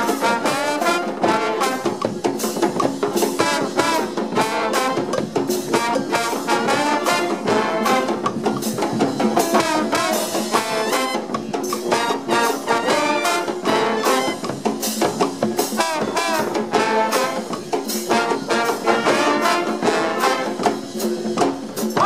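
Brass street band playing together: saxophones, trumpets and tuba over a steady beat of bass drum and snare drum.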